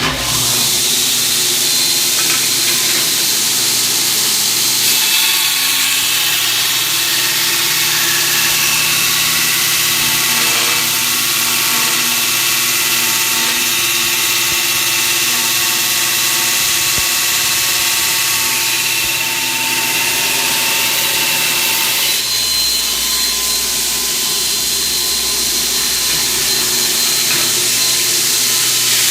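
Belt grinder with a 36-grit ceramic sanding belt grinding into a 1/4-inch steel bar: a loud, steady grinding hiss with several high whining tones, starting abruptly.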